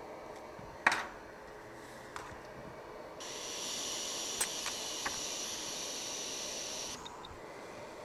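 A sharp click about a second in, then a hot air rework station blowing a steady hiss with a faint high whine for about four seconds, cutting off suddenly. It is heating a small donor capacitor off a circuit board so it can be lifted with tweezers.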